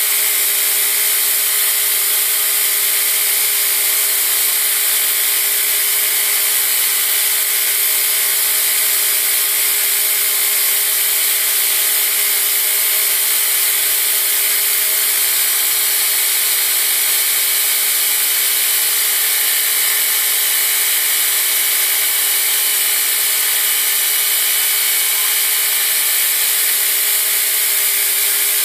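Belt grinder running with a steel push dagger blade held against the abrasive belt: a steady grinding hiss as the blade's bevel is ground, over the machine's steady hum.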